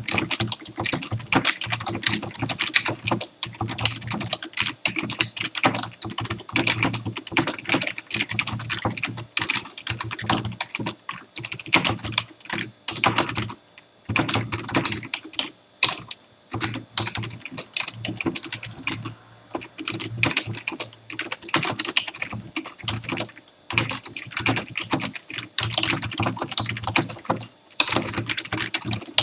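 Typing on a computer keyboard: a fast, steady stream of key clicks, with a few brief pauses.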